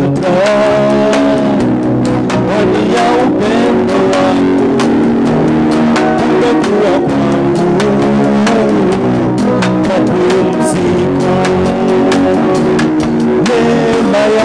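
Instrumental worship music: held chords under a melody line that slides in pitch.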